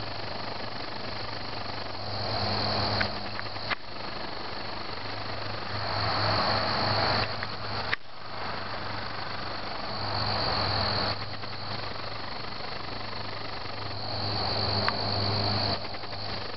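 Crickets chirping steadily in the background, a constant high-pitched trilling, with louder stretches about every four seconds that each cut off suddenly.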